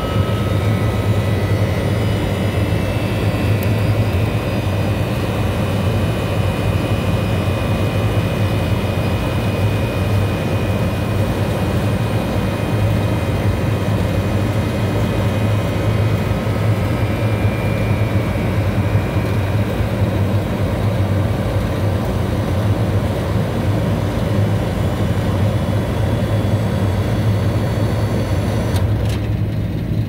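Walk-in freezer condensing unit running with a steady low hum while the compressor pumps the system down toward its low-pressure cut-out. Near the end there is a click, after which the higher hiss falls away, as the new dual pressure control cuts out at about 5 PSI.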